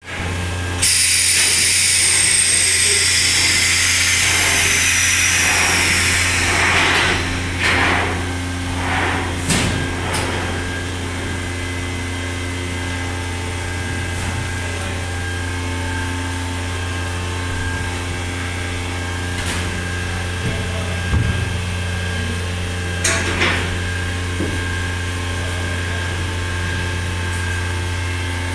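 A power tool runs with a loud high whine for the first five or six seconds, its pitch falling, over a steady low machine hum that carries on throughout. A few short knocks follow later on.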